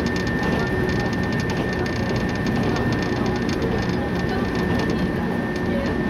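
Cabin noise of a JR West 115-series electric train running at speed: a steady rumble of wheels on rail and the running gear, with a steady high tone throughout.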